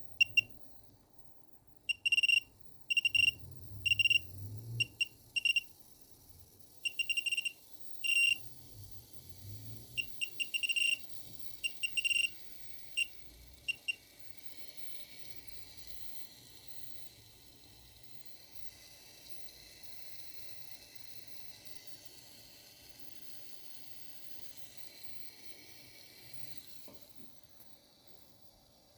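Wanptek APS1203H bench power supply making a strange noise, likened to boiling: a string of irregular short high beeps and chirps over the first half, then a steady high hiss that stops shortly before the end.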